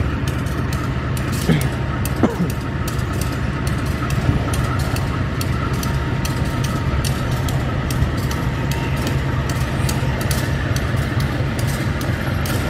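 CC 201 diesel-electric locomotive pulling a passenger train at walking pace, its diesel engine giving a steady low drone, with many small clicks from the train moving over the track.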